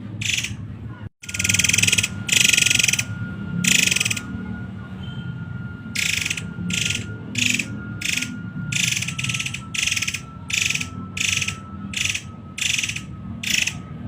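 A murai air bird giving a rapid series of harsh, rattling calls, each about half a second long, about one and a half a second later on. This is the bird's close-set 'tembakan' (shot) calling. A faint steady high tone runs underneath, and the recording drops out briefly about a second in.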